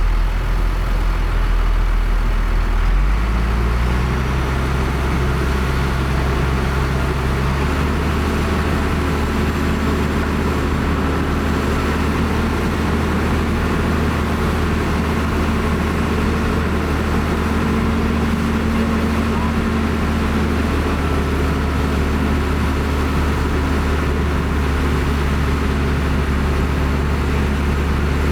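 Heavy diesel engine of an earthmoving machine running steadily. Its pitch steps up about three seconds in and again near eight seconds, then holds.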